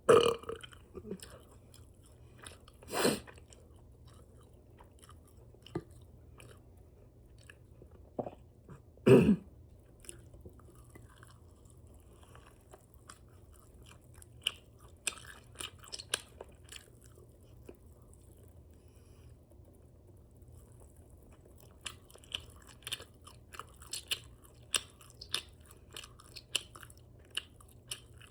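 Close-up open-mouth chewing and lip smacking on spicy chicken wings dipped in ranch: wet clicks and smacks, with a few louder, heavier sounds in the first third and a quieter stretch in the middle.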